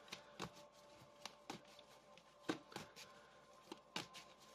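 Tarot deck being shuffled by hand: faint, irregular soft slaps and clicks of the cards, about two or three a second.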